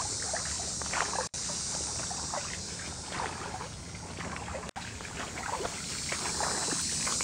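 Feet wading through shallow water on a flooded trail: irregular splashing and sloshing with each step, over a steady hiss. The sound cuts out for an instant twice.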